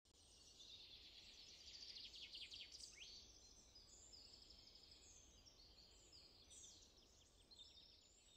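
Faint birdsong: several small birds chirping and trilling, with a quick falling note about three seconds in, over a low, steady outdoor rumble.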